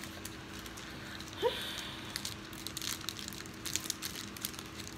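Plastic wrapper of a Snickers bar crinkling and crackling as it is handled and opened, a quick run of crackles in the second half. A short rising squeak about a second and a half in.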